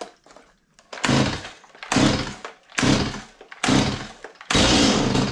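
Stihl MS 180 two-stroke chainsaw being pull-started on full choke: five quick rope pulls about a second apart, each cranking the engine over. On the last, longer pull the engine coughs in a half start, the sign that it is ready to be moved to half choke.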